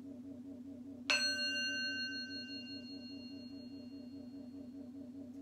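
A small metal singing bowl is struck once, about a second in, and rings on with several high tones that fade away over the next few seconds. It is rung as the cue to inhale. A steady low hum runs underneath.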